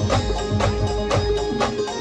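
Brass band music: drums and percussion beating a steady, driving rhythm under a long held brass note.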